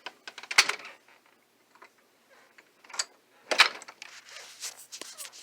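Scattered sharp clicks and soft rustling: three louder clicks, about half a second, three seconds and three and a half seconds in, then a faint hiss near the end.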